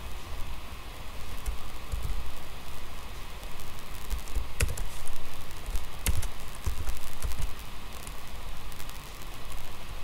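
Computer keyboard and mouse clicking now and then, with two sharper clicks in the middle, over a steady background hiss and dull low thumps.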